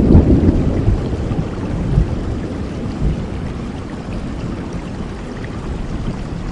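Steady rain with a low rumble of thunder that is loudest at the start and dies away over the next few seconds.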